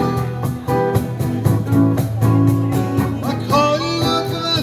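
Live band playing an instrumental passage: guitar over a steady beat, with notes bending in pitch near the end.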